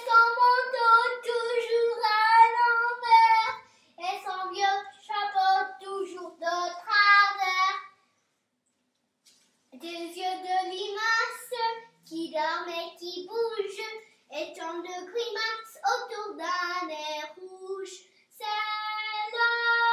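A young girl singing a French children's song unaccompanied, in sustained sung phrases, with a break of about a second and a half near the middle.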